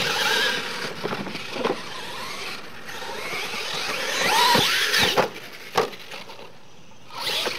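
Radio-controlled monster trucks racing on a dirt track, their motors whining and rising and falling in pitch with the throttle. There are several knocks, with a sharp crack near six seconds as one truck tumbles over.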